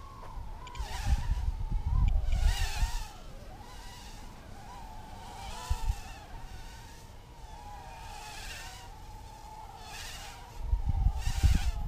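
Micro quadcopter's tiny 0820-15 (8 mm) motors whining in flight, the pitch wavering up and down with throttle and the buzz swelling louder at times. Low rumbles of wind on the microphone come about a second in and again near the end.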